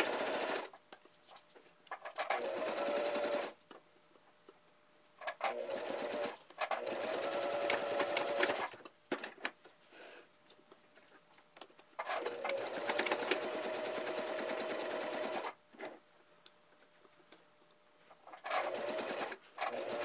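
Electric sewing machine stitching in about six short runs with quiet pauses between them, each run a steady whir lasting one to three and a half seconds, the longest in the middle.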